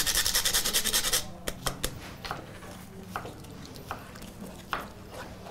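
A whole nutmeg grated on a fine rasp grater in rapid, even strokes, stopping about a second in. After that, a few scattered light knocks and scrapes of a spoon against cookware.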